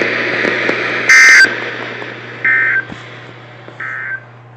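Emergency Alert System end-of-message data bursts from a weather radio: three short, identical warbling buzzes about a second and a half apart, each quieter than the last, marking the end of the tornado warning. Radio hiss fades out under them, over a steady low hum.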